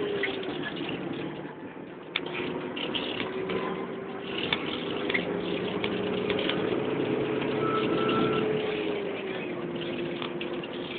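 Car engine and tyre noise heard from inside the moving car's cabin: a steady engine hum over road rumble, the hum dropping a little in pitch near the end.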